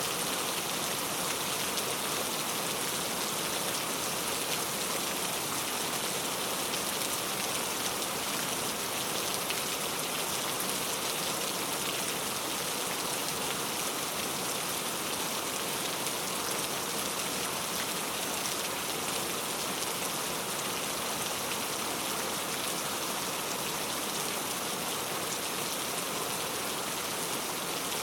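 Steady rain falling, an even hiss of drops on a surface with no thunder or other events.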